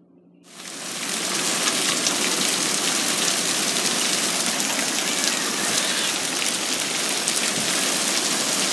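Heavy rain pouring down, a dense, steady hiss of drops with fine patter in it, which starts abruptly about half a second in.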